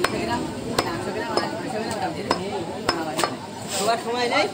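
Butcher's cleaver chopping beef on a wooden log chopping block: sharp, irregular knocks about once or twice a second.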